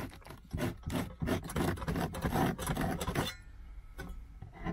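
Knife blade scraping in short repeated strokes along a freshly cut edge in the boot trim, shaving off the burr left by the cut. The strokes come quickly for about three seconds, then turn faint.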